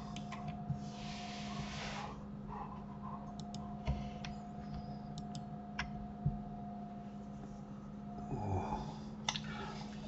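Scattered mouse clicks over a steady electrical hum, with a breath into the microphone lasting over a second near the start.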